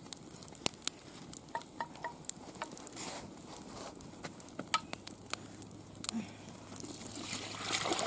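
Wood fire crackling under a cast iron cauldron, with scattered sharp pops. Near the end beef broth is poured from a glass jar into the steaming pot, a swell of splashing.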